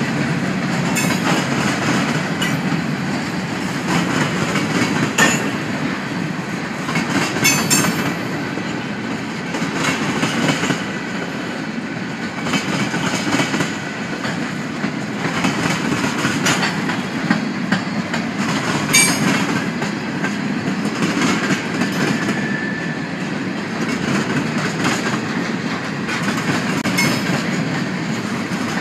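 Freight train cars (covered hoppers and coal hoppers) rolling steadily past: a continuous rumble of steel wheels on rail, broken by irregular clicks and clanks as wheels pass over rail joints.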